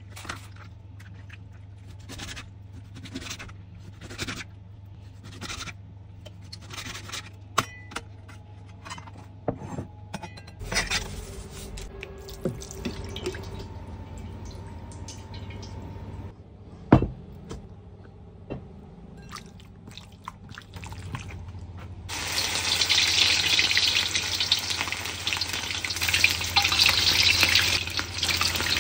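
A knife taps repeatedly on a cutting board while raw chicken is cut, over a steady low hum, with a sharp knock of metal in the middle. About twenty-two seconds in, chicken goes into hot oil in a wok and fries with a loud, steady sizzle.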